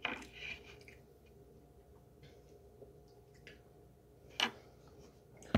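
A mouthful of baked cornstarch being chewed: faint, scattered crunching clicks, with two sharper clicks near the end.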